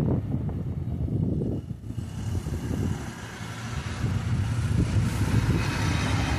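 Road traffic passing: a truck's low engine rumble fades away by about two seconds in, then a motor scooter comes past, its engine and tyre noise swelling over the last couple of seconds.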